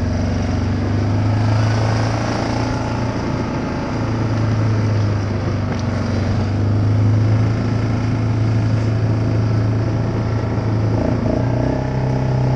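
ATV engine running steadily while under way, an even low engine note with no break. Its pitch steps up slightly near the end.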